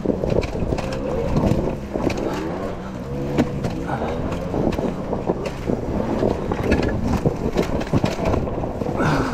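Dirt bike engines revving up and down repeatedly, with scattered knocks and clatter.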